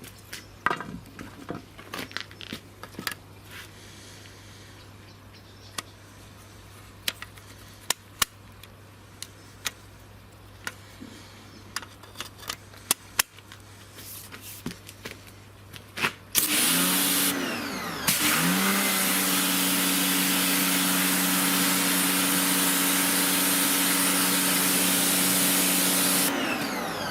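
Scattered light clicks and knocks over a low hum. Then, about sixteen seconds in, a Sunpow BCN-H 1600 W electric pressure washer's motor spins up with the hiss of its water jet. It stops briefly and spins up again, runs steadily, and cuts out near the end.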